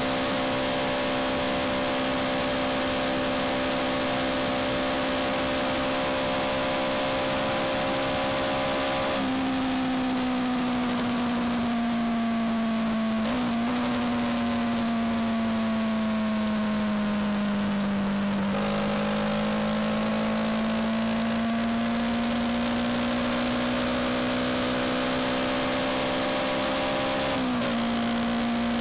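Yamaha MT-125's single-cylinder four-stroke engine running at road speed, with wind and road rush. The engine note sinks gradually as the bike slows through the middle, then climbs again as it speeds back up. There are brief breaks in the note twice.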